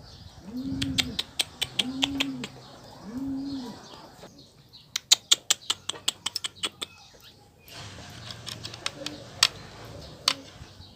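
Domestic pigeons cooing, three arched coos in the first few seconds. About halfway through comes a quick run of sharp clicks, with scattered single clicks near the end.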